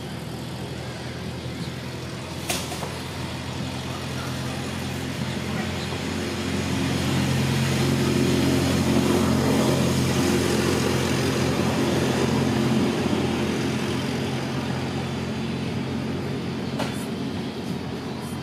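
A motor vehicle's engine running with a steady low hum. It grows louder from about six seconds in and eases off again after about thirteen seconds. There is a sharp click about two and a half seconds in.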